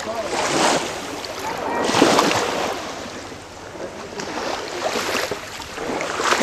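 Small waves washing in the shallows at the shore, the wash rising and falling every second or two.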